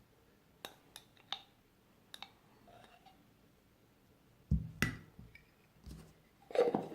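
A spoon clicking lightly against a small bowl as spoonfuls of honey are added to olive oil: about five small clicks in the first half, then a few louder, duller knocks near the end.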